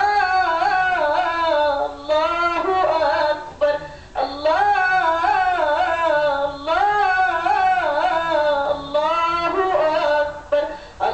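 A girl singing a madih, an Arabic praise song for the Prophet Muhammad, solo and without instruments: long ornamented phrases with the pitch sliding up and down, broken by short breaths about every two to three seconds.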